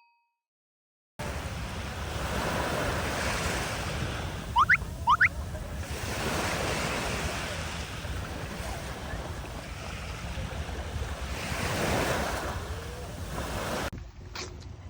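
Wind rushing over the microphone with a deep rumble, swelling and easing in gusts, starting about a second in. Two short rising whistles cut through it about four and a half seconds in.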